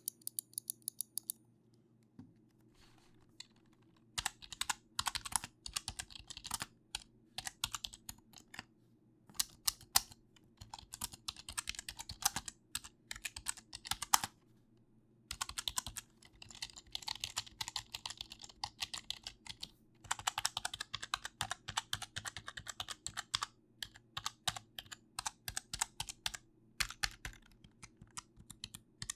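Typing on an unplugged computer keyboard in a key-sound test: runs of fast, sharp keystroke clicks broken by a few short pauses.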